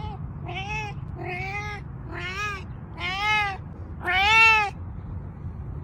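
A cat meowing again and again, about five short meows a second or less apart, each rising and falling in pitch and growing louder, the last two the loudest. The calls stop about two-thirds of the way in.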